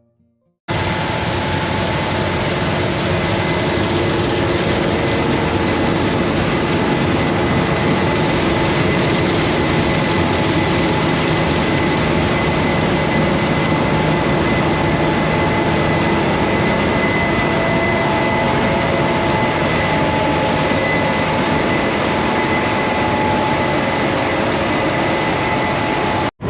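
Combine harvester running steadily while cutting soybeans: a loud, even machine noise with a constant whine. It starts abruptly about a second in and cuts off suddenly just before the end.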